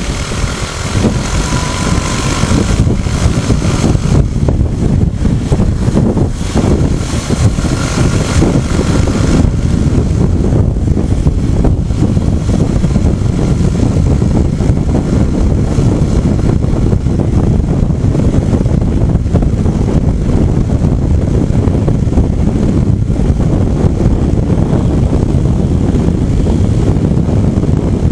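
Wind rushing over the camera microphone of a Rusi SSV200 motorcycle riding at road speed, a loud, steady rumble, with the bike's engine running underneath.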